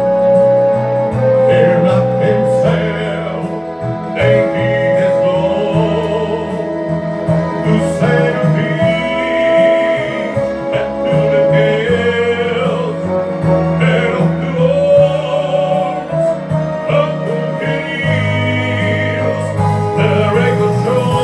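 A man singing into a microphone over instrumental accompaniment, his voice amplified through the room's sound system.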